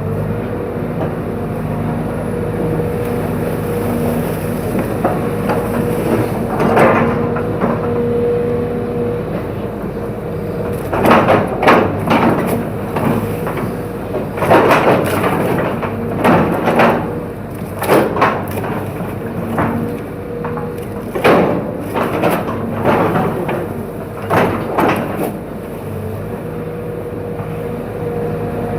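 Excavator diesel engine running steadily while bamboo cracks and splinters under the machine, heard as a series of loud sharp cracks and knocks, several in quick succession from about a third of the way in to near the end.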